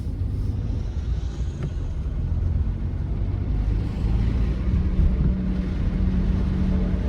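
Low, steady rumble of a car driving, growing a little louder about four seconds in.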